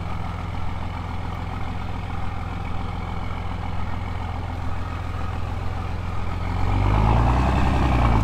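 2007 Dodge Ram's 5.9 common-rail Cummins turbo-diesel running steadily at a low idle, then revving up, louder and rising in pitch, for the last couple of seconds.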